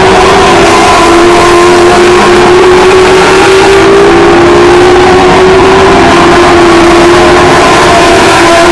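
A pack of race cars lapping an oval track, several engines running together in one loud, steady din whose pitches waver slightly.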